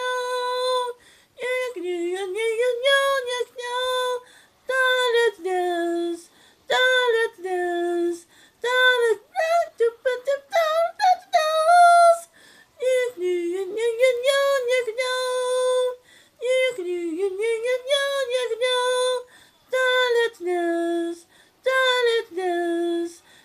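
A high voice singing an unaccompanied melody in short phrases, holding and sliding between notes with brief pauses between phrases.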